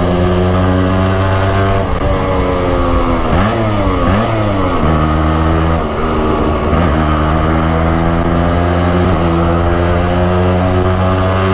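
Yamaha RX-135 two-stroke single-cylinder engine running loud under way. Its note falls and climbs back a few times in the first half, then holds steady.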